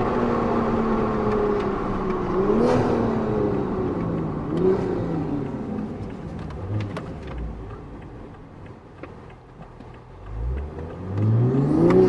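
Car engine slowing down, its pitch falling steadily, with two short rev blips about two and a half and four and a half seconds in. It goes quieter for a few seconds, then revs up hard with a rising pitch near the end.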